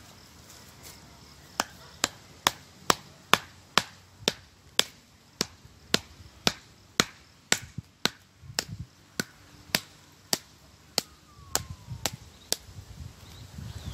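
A long run of sharp, evenly spaced strikes, about two a second, beginning a little over a second in and stopping shortly before the end.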